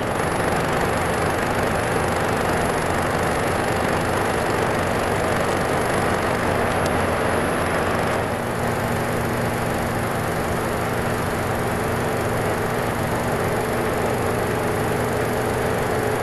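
Weiler Matador SV metal lathe running under power and taking a final cutting pass on a steel ring blank: a steady, dense machining whir that changes slightly about halfway through.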